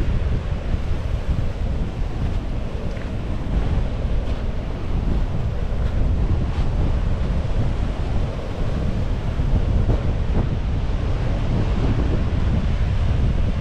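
Wind buffeting the microphone over the steady wash of ocean surf, a constant low rumbling noise with no break.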